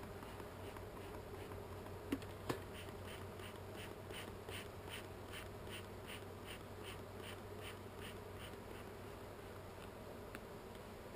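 Honey bees buzzing steadily around an opened hive. About two seconds in come two sharp knocks, then a run of short, even puffs, about two or three a second, from a beekeeper's smoker bellows being pumped to get a smoker that has stopped making smoke going again.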